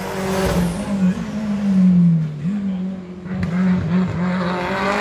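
A Bastos-liveried Ford competition car's engine driving hard past at full throttle. The engine note falls away about two seconds in and picks straight back up, then dips briefly a few more times as the driver lifts and changes gear.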